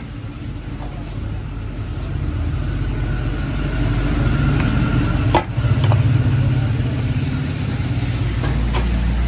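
A metal ladle working through meat in a large steel tray, with a sharp clink about five and a half seconds in and another just after, over a steady low rumble that grows louder after the first couple of seconds.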